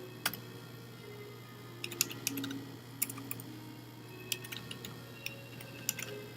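Computer keyboard keystrokes: scattered single taps and short clusters of clicks, over a steady low hum.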